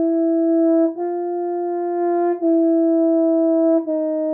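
Tenor horn playing a slow chain of semitone steps in its upper register: a held C sharp rises to D, then steps back down through C sharp to C, each note held about one and a half seconds. It shows the half-step raising and lowering of a sharp, with the notes moving like a staircase.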